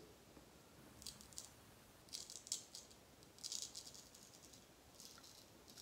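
Straight razor scraping through lathered beard stubble on the cheek in several short, faint strokes.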